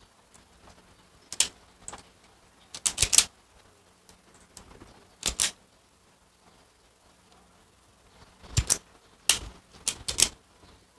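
Hand-held self-adjusting wire stripper clicking as its spring-loaded jaws snap shut and spring open on wire ends being stripped: sharp mechanical clicks, singly or in quick runs of two or three, every second or two.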